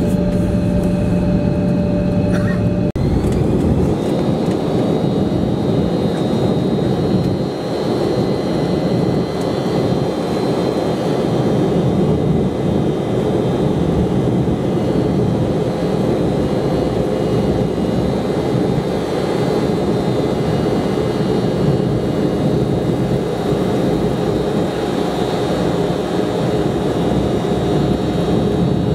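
Embraer 170 regional jet's CF34 turbofan engines heard inside the cabin as the plane rolls along the runway, speeding up for takeoff: a steady loud rush with a thin high whine. For the first three seconds there is a steadier, lower hum with a couple of fixed tones before the sound changes abruptly.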